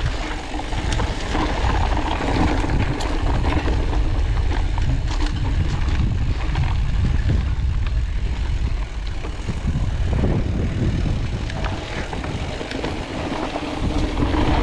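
Wind rumbling on the microphone of a mountain bike moving down a dirt singletrack, over the hum of the tyres on the trail, with scattered clicks and rattles from the bike.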